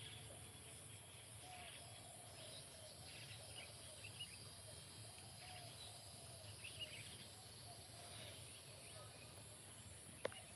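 Near silence: faint countryside ambience, with scattered small bird chirps, a steady high insect drone, and one sharp click near the end.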